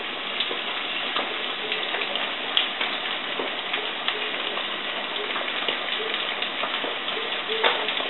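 Floured chicken legs deep-frying in hot oil in a cast-iron pot: a steady sizzle with scattered crackles and pops as more drumsticks go into the oil.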